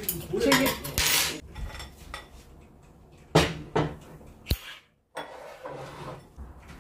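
Metal chopsticks and ceramic rice bowls being set down on a table: a handful of separate sharp clinks and knocks.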